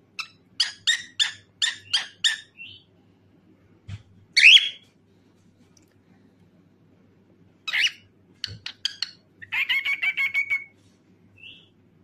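Cockatiel singing: a run of about seven quick sharp chirps in the first three seconds, a loud single whistled call about four seconds in, then more short chirps and a fast warbling trill near the ten-second mark.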